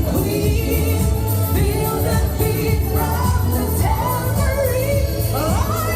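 Pop song with a lead singer over a steady beat and bass line; one held note rises sharply near the end.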